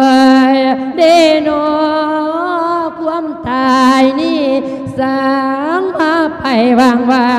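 A monk singing an Isan lae funeral chant, a lament sending off the spirit of the dead, in long held notes that waver and glide between pitches.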